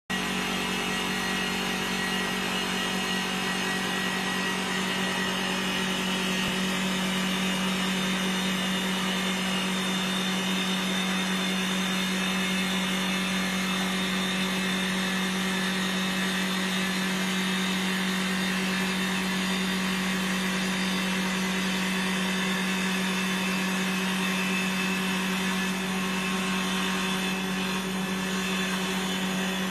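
CNC woodworking lathe with a single spindle and double cutters turning a wooden spindle: a steady hum from the running machine under the continuous hiss of the cutters shaving the wood.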